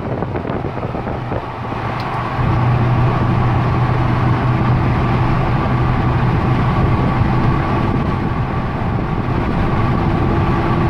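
Ford 6.0 Power Stroke V8 turbo-diesel in a 2004 F-350 pulling under load, heard through the open window, with wind noise; it grows louder about two seconds in and then holds steady. The owner suspects a misfire on one cylinder that comes with a turbo 'fart' sound and puffs of black smoke.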